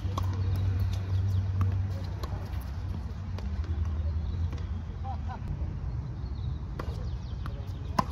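Tennis rally: sharp pops of rackets striking the ball and the ball bouncing on the hard court, back and forth. The loudest pop comes near the end, from a forehand close by. A steady low rumble runs underneath.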